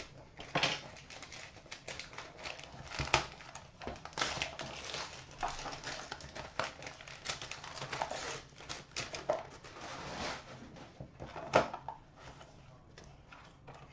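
Shiny gold wrapping paper being torn and crinkled off a cardboard box: irregular crackling with a few sharper rips, the loudest near the end.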